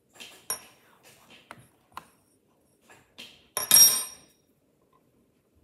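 Plastic Lego bricks clicking and clattering as they are handled: a few short clicks, then a louder, ringing clatter about three and a half seconds in.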